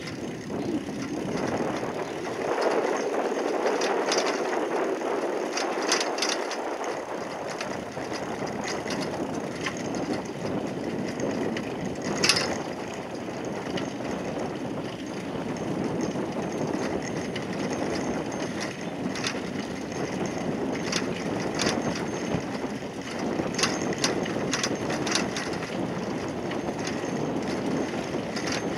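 Bicycle rolling along a stone-slab paved path: a steady rush of tyre and wind noise, with scattered sharp clicks and rattles, the loudest about twelve seconds in.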